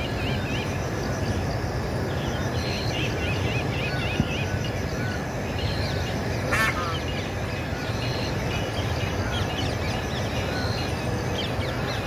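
Birds chirping, with many quick wavering chirps and a short high note repeating every few seconds, over a steady low background noise. A sharp click sounds a little past halfway.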